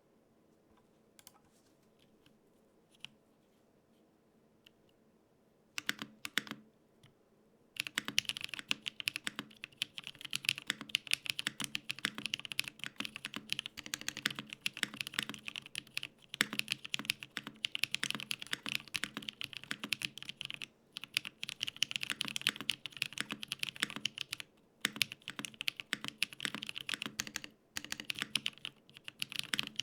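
Custom 75% mechanical keyboard being typed on. It is a Gok 7V with an FR4 plate, no foam, lubed Holy Panda tactile switches and GMK keycaps. A few scattered keystrokes come first, then fast continuous typing starts about eight seconds in, broken by a few short pauses.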